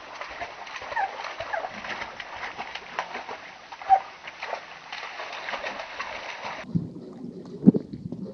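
A dog splashing and wading in the shallow water of a backyard inflatable pool. Near the end it gives way to a muffled underwater sound of a dog paddling, with bubbling and low thuds.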